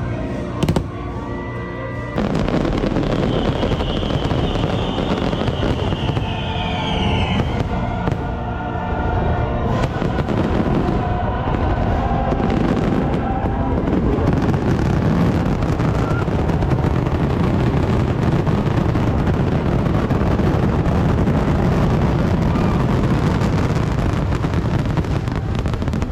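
Fireworks show with its music soundtrack: a few separate bangs, then about two seconds in a dense, unbroken barrage of fireworks bursts over the music, typical of a finale.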